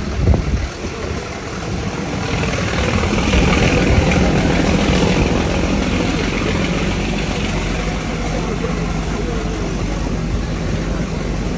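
Ooty toy train running, a steady loud rumble, with a single knock just after the start.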